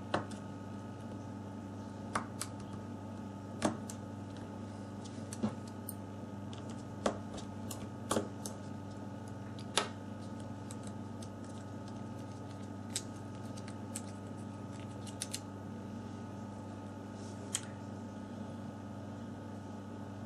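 Small sharp clicks and taps of hand tools and phone parts as a Samsung Galaxy S4 is taken apart, about a dozen at irregular intervals, over a steady electrical hum.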